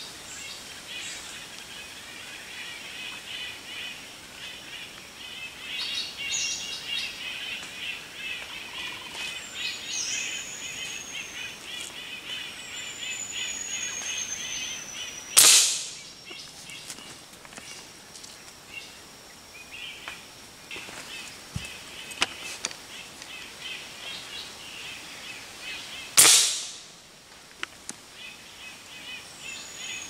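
Two rifle shots fired up into the forest canopy, each a sharp crack that rings away for about a second, the first about halfway through and the second about eleven seconds later. Birds call around them, with high whistles that slide down in pitch over a rapid trilling chorus.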